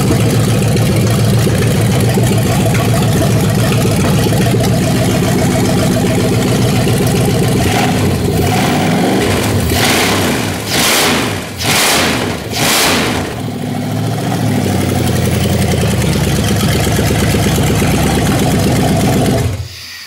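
Fuel-injected 5.9 Magnum 360 cubic-inch V8 with a straight pipe, running loud on its first start-up with a slightly lumpy idle, put down to old spark plugs. About ten seconds in it is revved in four quick sharp blips, then it settles back to idle and is shut off suddenly near the end.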